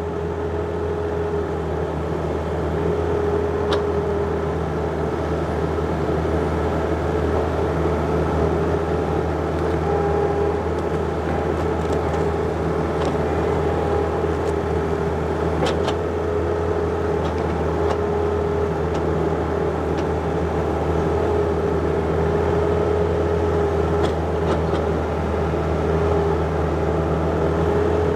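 John Deere 50ZTS mini excavator's diesel engine running steadily under load, with a whine that swells and fades as the hydraulics are worked. A few short sharp knocks come through as the bucket works in the ground.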